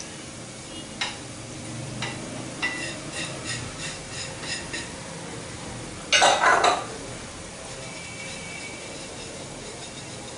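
Potato cheese balls deep-frying in hot oil in a pan, a steady sizzle. Over it come a few sharp clicks and a quick run of ringing kitchen-utensil clinks, about four a second, in the first half, then a brief louder clatter about six seconds in.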